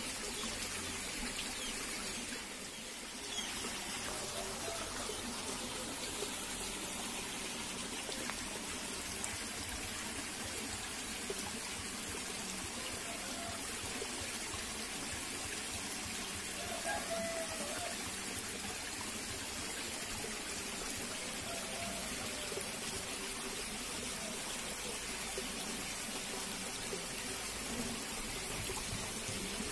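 Shallow stream water trickling steadily over rocks and debris.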